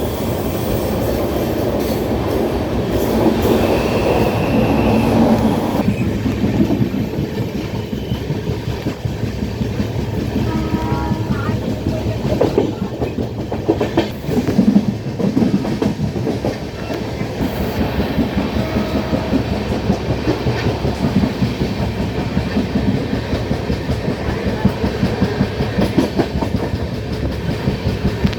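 Passenger train running along the track, heard from aboard a coach: steady rumble of the wheels with clickety-clack over the rail joints.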